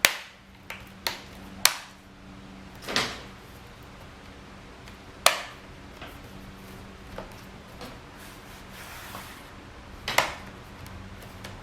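Small plastic clips of a laptop screen bezel being handled and fitted back on: scattered sharp clicks and taps, the loudest about three, five and ten seconds in, over a steady low hum.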